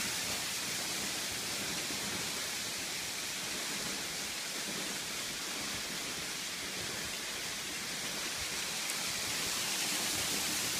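Steady, even hiss of outdoor ambience, like rushing water or rain, with no distinct events.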